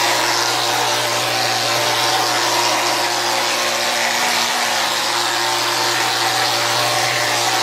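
Spray gun of a Powermix Alpha gypsum plastering machine hissing steadily as compressed air sprays plaster onto a wall, with a steady low hum from the machine underneath.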